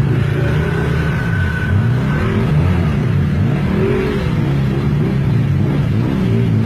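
Off-road vehicle engine revving hard, its pitch rising and falling over and over.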